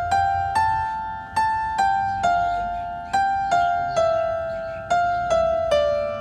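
Background music: a simple melody of single notes, each struck sharply and fading away, about two notes a second.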